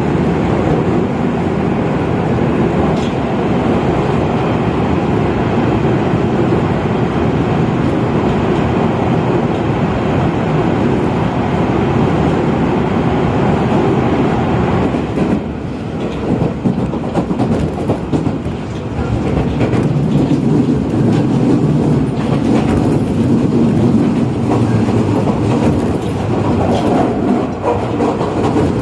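Keio Inokashira Line express train running, heard from inside the passenger car: a steady rumble of wheels and motors under way. About halfway through the rumble drops a little and turns choppier, with wheels clicking over the rail joints.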